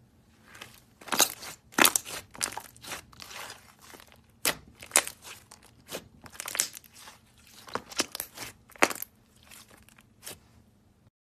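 Soft, glossy slime pressed and squeezed between fingers, giving an irregular run of sharp crackling pops and clicks as air trapped in it bursts.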